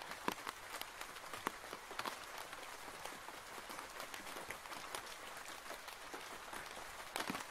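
Steady rain falling on a roof: a constant hiss with scattered, sharper hits of single drops.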